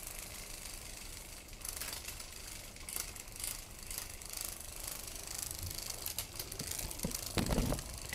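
Small motor and gears of a battery-operated moving butterfly cat toy running with a steady ratcheting whir. A dull thump about seven and a half seconds in.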